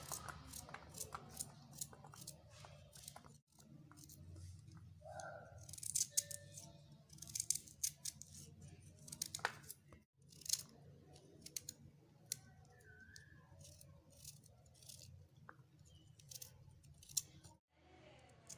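A small kitchen knife dicing a carrot held in the hand over a steel plate: a quick, irregular run of crisp cuts and clicks as the pieces are sliced off and drop onto the plate.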